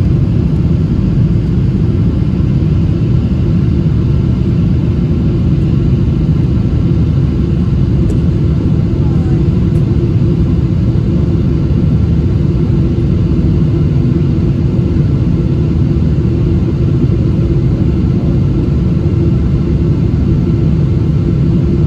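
Steady cabin rumble of a Boeing 777-200 in flight, from its engines and the airflow, heard inside the passenger cabin, with a faint steady high tone over it.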